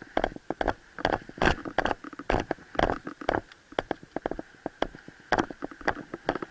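Footsteps crunching on stony, gravelly ground at a quick walk or jog, an irregular run of sharp steps, two to four a second.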